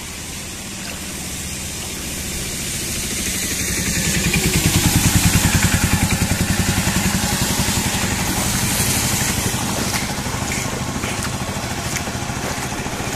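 A motor vehicle's engine running with a steady low pulse, growing louder about four seconds in and easing back after, over a steady hiss of rain and tyres on a wet road.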